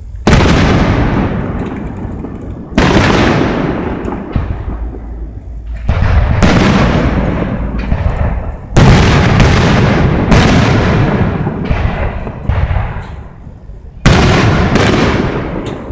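Aerial fireworks shells bursting, about six loud booms, each trailing off in a long rolling echo, with a few smaller pops among them.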